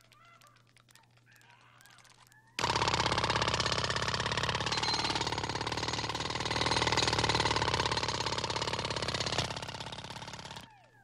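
Cartoon hammer-drill sound effect: a loud, fast rattle that starts suddenly about two and a half seconds in and cuts off shortly before the end.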